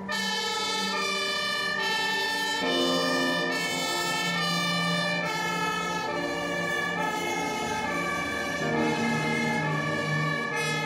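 German fire engine's two-tone siren (Martinshorn) sounding, switching between a high and a low note about every second. Background music with a held low tone plays underneath.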